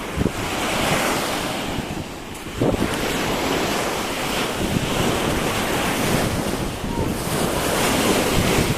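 Ocean surf breaking and washing up the beach in swells, with wind buffeting the microphone.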